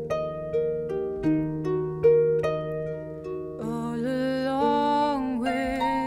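Concert harp playing a slow, lullaby-like line of plucked notes that ring on. A little past halfway a sustained, gently wavering melody line joins over the harp and fades out near the end.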